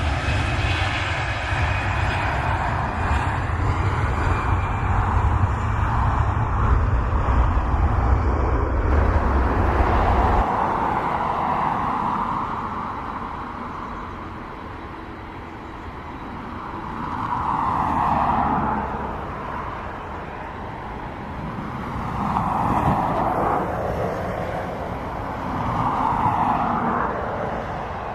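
Boeing 737-800 jet engines (CFM56-7B) running, with a loud deep rumble and a high whine that falls slowly in pitch. About ten seconds in the rumble drops away, and the jet noise that remains swells and fades several times.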